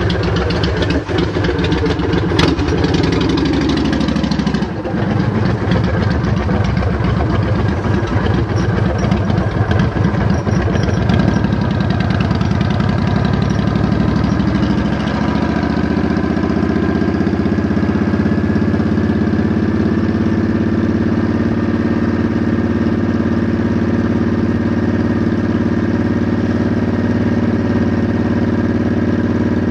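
Vehicle engine running while riding down a street: its pitch falls and drops away about four seconds in, then climbs again and settles to a steady pitch for the rest of the ride.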